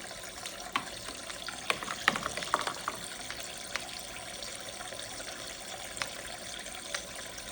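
Water running steadily from a toy sink's faucet, with scattered light clicks and knocks of small toy dishes being handled in it, busiest a couple of seconds in.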